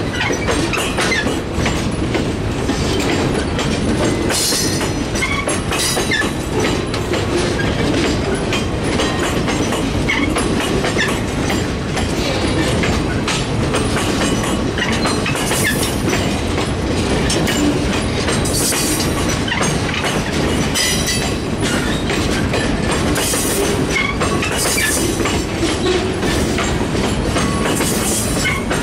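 Freight train of boxcars and tank cars rolling past at close range: a steady rumble with the wheels clicking over rail joints, and now and then a brief high squeal from the wheels.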